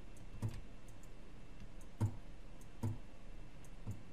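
Four separate clicks of computer keyboard keys being pressed, each with a low thud, spaced unevenly about a second apart; the one about two seconds in is the loudest.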